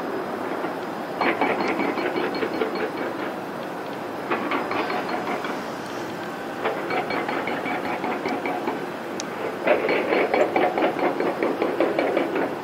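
A cat licking paste from a squeeze-tube treat, with rapid wet clicking licks several times a second in four bursts with short pauses.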